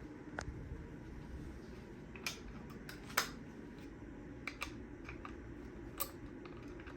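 Light plastic clicks and taps, about six spread over several seconds, from a robot vacuum's small remote control being handled and set up, over a faint low background hum.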